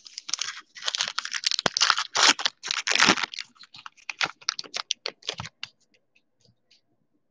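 A trading-card pack's wrapper torn open and crinkled for about three seconds, followed by the light clicks of the cards being slid apart and thumbed through in the hand.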